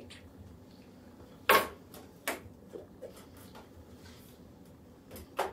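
A few short clicks and knocks of kitchen things being put down on a counter, the loudest about a second and a half in, with another pair near the end. They come as a table knife is laid on a wooden cutting board and a plastic lid is pressed back onto a butter tub.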